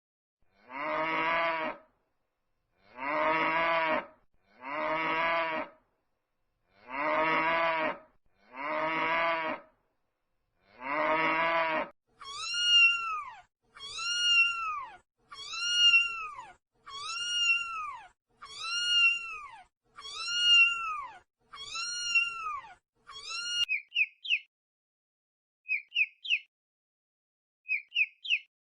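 A sequence of animal sounds: six long, low cow moos, then about nine high, arching cat meows, then short bird chirps in quick groups of three.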